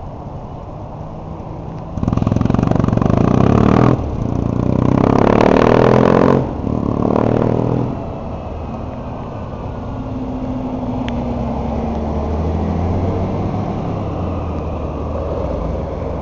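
Kawasaki W650 parallel-twin running through aftermarket Posh Capton mufflers, idling, then pulling away hard about two seconds in, its pitch rising, with two short dips as it changes up. From about eight seconds in a city bus passes close by with a steadier, lower engine and tyre sound.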